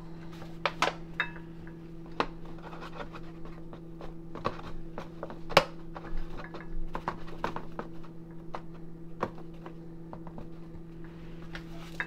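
Plastic measuring cup scooping flour and tipping it into a glass mixing bowl: scattered light taps and scrapes, a sharper knock about five and a half seconds in, over a steady low hum.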